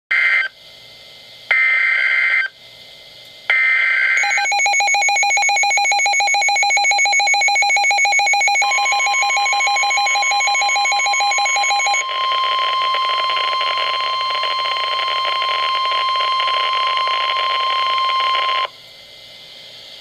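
Midland NOAA weather radio sounding a tornado-warning alert. It opens with three short squawks of the SAME digital header tones, then the radio's own rapid, evenly pulsing beep alarm. The steady NOAA Weather Radio warning alarm tone joins about nine seconds in and cuts off near the end.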